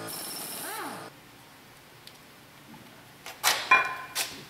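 A power tool running on the clutch pressure plate bolts winds down and stops about a second in. Near the end come a few sharp metallic clinks with a brief ringing, the loudest about three and a half seconds in.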